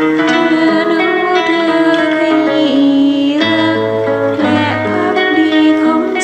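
Fingerstyle acoustic guitar music: plucked notes over bass notes, with a melody line that wavers and bends in pitch.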